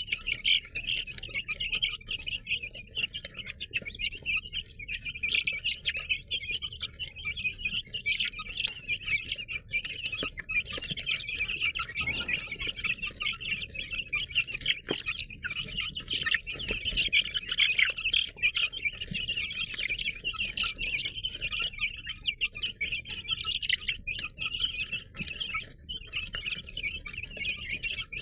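A large crowd of baby chicks peeping nonstop, many high-pitched cheeps overlapping into a steady chatter.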